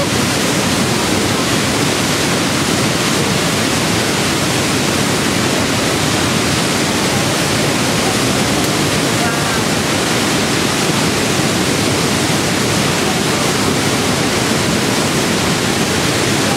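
Niagara Falls water pouring down close by: a loud, steady rush of falling water and spray that never lets up.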